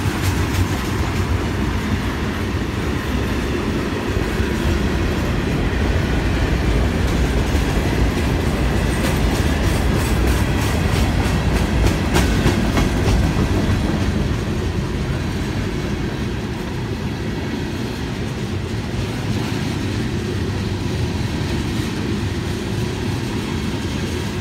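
Florida East Coast Railway freight train's hopper and tank cars rolling past: a steady rumble of steel wheels on rail, with clicks as the wheelsets cross rail joints, loudest about ten to thirteen seconds in.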